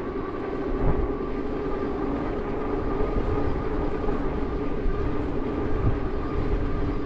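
Riding a Juiced Scrambler electric bike: a steady rumble of wind over the microphone with a steady whine running under it.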